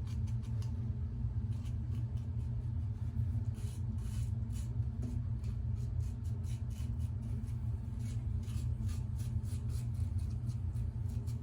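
Short, irregular scratchy strokes of a lather-catcher safety razor scraping stubble in touch-up passes over skin slicked with witch hazel, over a steady low hum.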